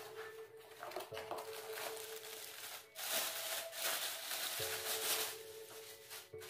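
Cardboard box being opened and a plastic bag crinkling as a small power tool is unwrapped, in irregular rustling bursts that grow denser about three seconds in.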